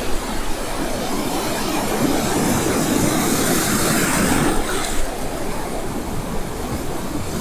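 Ocean surf washing in around the feet in shallow water, a steady rush of foam that swells to its loudest about three to four seconds in as a wave breaks and runs up.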